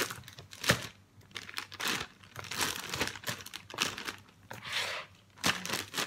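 Clear plastic zip-top freezer bag crinkling and rustling as it is handled and filled with blanched okra, with one sharp crackle less than a second in.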